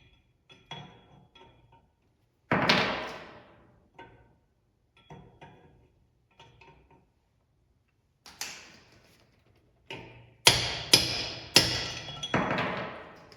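Hammer blows on the steel parts of a Dana 70 axle being taken apart, each strike ringing and dying away. The blows are irregular and light at first, with one hard blow about two and a half seconds in, then a quick run of four hard blows near the end.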